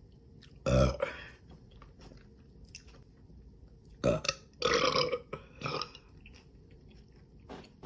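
Women burping loudly during a meal: one big burp about a second in, then two or three more in quick succession about four to six seconds in.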